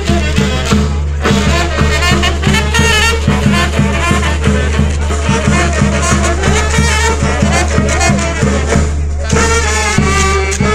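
Band music: wind instruments play a wavering melody over a steady drum beat, accompanying a traditional dance.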